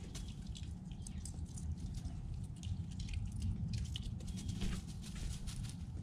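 Light, scattered clicks and rustles of a squirrel moving over dry fallen leaves, growing busier in the second half, over a low steady rumble.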